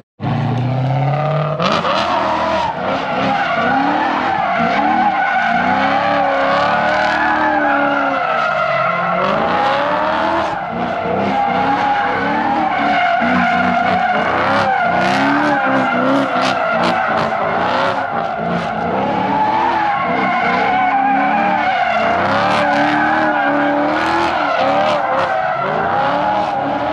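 BMW drift cars doing donuts: engines revving up and down again and again over continuous tyre squeal.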